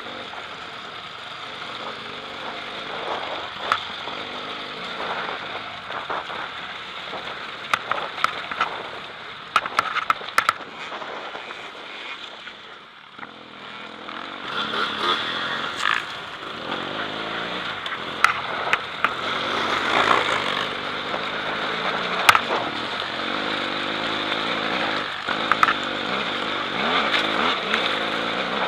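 BMW F800GS parallel-twin engine running hard as the bike is ridden over a rough dirt trail, with frequent sharp knocks and rattles from the bumpy ground. The engine eases off briefly about halfway through, then picks up and runs louder again.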